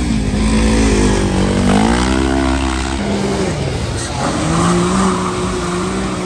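Side-by-side UTV engine revving hard. Its pitch climbs and falls about two seconds in, then holds steady at high revs.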